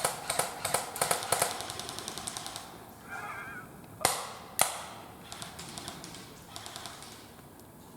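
Airsoft guns firing: rapid bursts of shots, about ten a second, in the first couple of seconds and again later, with two loud single cracks around four seconds in. A short warbling call sounds briefly about three seconds in.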